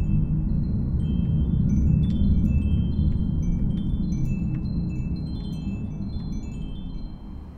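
Many short, high, bell-like chime notes tinkling at random over a deep, steady low rumble; the whole sound slowly fades toward the end.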